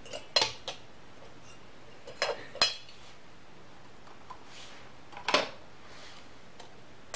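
Metal knife and fork clinking and scraping against the steel bowl of an electric cooker: a few light clinks near the start, a cluster of clinks with a short metallic ring a little past two seconds in, and one more clink about five seconds in.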